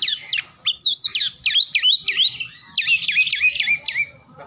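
Caged Oriental magpie-robin (kacer) singing a fast, harsh run of sharp downward-sweeping whistled notes, several a second with short breaks, showing off its repertoire of song phrases.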